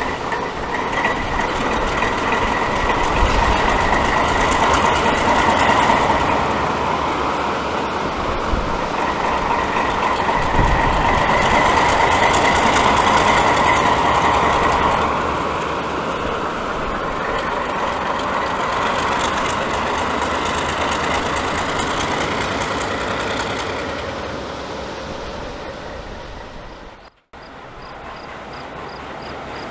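Alco diesel locomotive passing slowly over a road crossing: engine running and wheels clacking over the rail joints. A steady high ringing tone runs through the first half. The sound fades away after about 24 s and cuts out briefly near the end.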